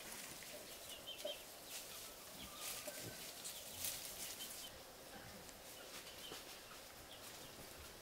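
Chickens clucking quietly while foraging, with scattered crackling and rustling in dry leaf litter.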